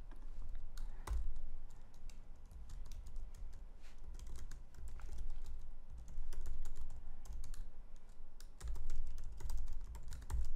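Typing on a computer keyboard: a run of quick, irregular key clicks, thickest near the end.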